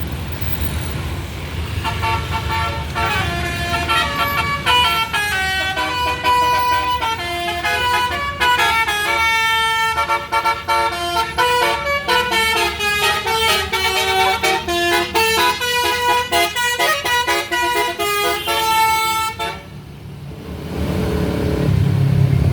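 A bus's multi-tone 'basuri' telolet horn playing a fast melody of shifting horn notes for about seventeen seconds over the low running of the bus engine. The horn stops near the end and the engine grows louder.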